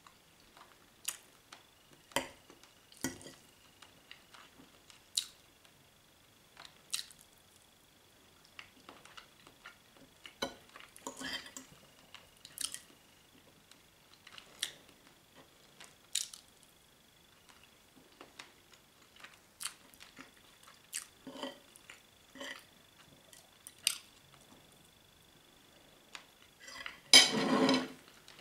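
Cutlery clicking and scraping against a plate in scattered sharp clicks as a person eats a meal, with a louder, longer clatter about a second before the end.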